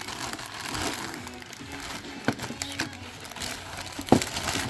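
Crinkling and rustling of packaging being handled, with a few sharp clicks and knocks, over faint background music.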